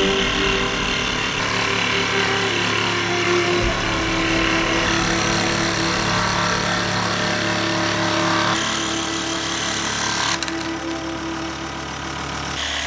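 Ryobi electric scroll saw running, its fine blade moving rapidly up and down as it cuts through a thin wooden board. The tone of the cutting changes about two-thirds of the way through.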